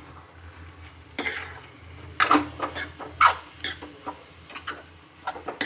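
A metal spoon stirring and scraping poha (flattened rice) in a steel kadhai. A run of irregular scrapes and clinks against the pan starts about a second in.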